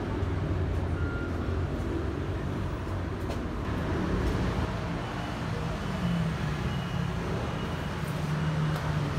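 Steady low rumble of motor vehicle engines in street traffic, with a few faint clicks.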